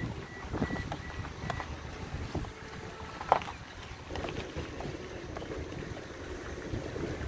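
Outdoor wind rumbling on the microphone, with a sharp click about three seconds in.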